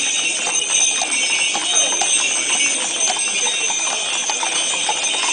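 Small bells jingling steadily as a line of ridden horses walks past, with hooves clip-clopping on the paved street.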